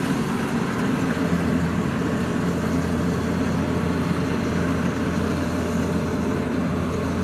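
Kubota DC-93 rice combine harvester running steadily as it cuts rice, a constant diesel engine drone mixed with the machine's running noise.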